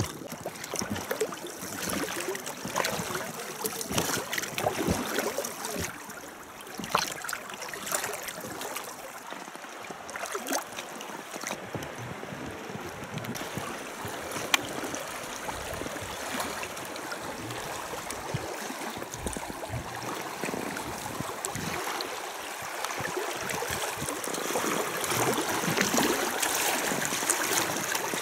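River water rushing and splashing over a shallow, fast stretch around a small rowing boat, with scattered sharp knocks; it grows a little louder near the end.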